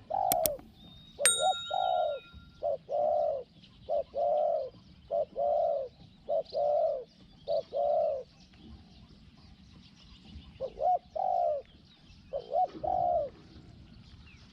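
Spotted dove cooing: short-then-long coos repeat about once a second for eight seconds, pause, then come twice more near the end. Two sharp clicks sound at the start, and other birds chirp faintly behind.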